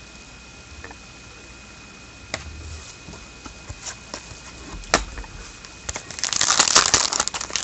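Scattered light clicks and taps of trading cards being handled, then, about six seconds in, loud crinkling of a foil wrapper on a 2013-14 Contenders hockey card pack being torn open.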